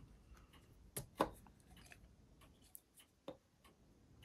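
Faint clicks and taps of small plastic model parts and tools being handled: two sharper clicks close together about a second in, then a few lighter ticks.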